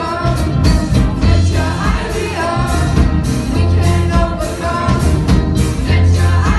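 Live band music: a group of singers over bass and drums, with the bass notes recurring strongly every couple of seconds.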